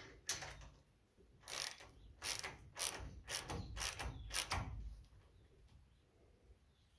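Socket ratchet wrench clicking through about seven quick strokes, roughly two a second, as a bolt is run down, stopping about five seconds in.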